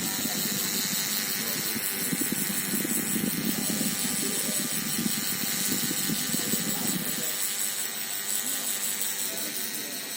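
Small electric motor running, with a steady high whine and a dense rattle that stops about seven seconds in.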